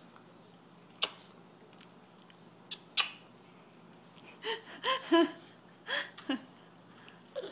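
A few short sharp clicks, then a baby babbling in short, high-pitched bursts from about four and a half seconds in.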